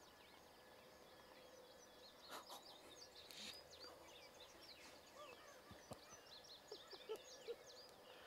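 Near silence, with many faint, short bird chirps in the background and a few soft clicks and rustles.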